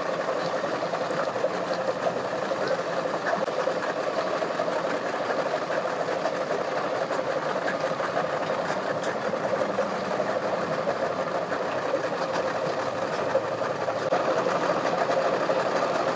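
Boat outboard motors idling at a dock: a steady, even running sound that holds without change.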